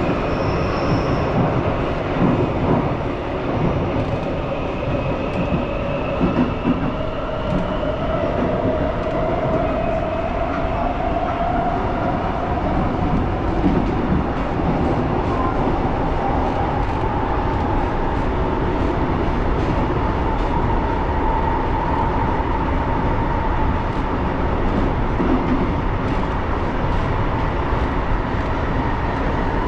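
Bucharest metro train heard from inside the car while running through the tunnel: a steady loud rumble of wheels on rails, with a whine that slowly rises in pitch over the first half and then levels off.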